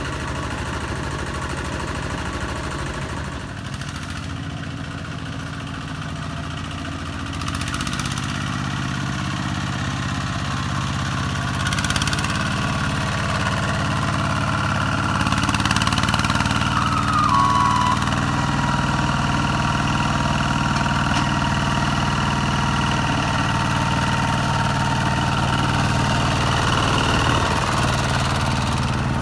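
Single-cylinder diesel engine of a Kubota RT-120 two-wheel walking tractor running steadily under load while pulling a loaded trailer, growing louder about eight and again about twelve seconds in.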